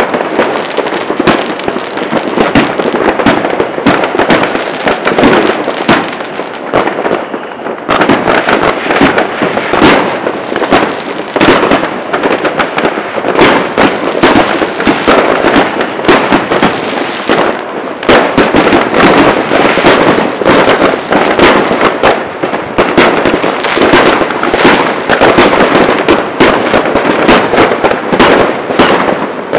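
Many fireworks and firecrackers going off at once: a dense, unbroken barrage of bangs and crackling. It thins briefly about seven seconds in and grows thicker from about eighteen seconds on.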